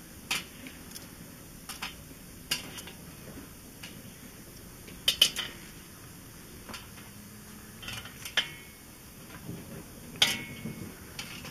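Scattered sharp clicks and knocks from hands pulling a plastic bag off marinated whole chickens and lifting one out among dishes on a table, the loudest pair about five seconds in. Near the end one clink rings on briefly.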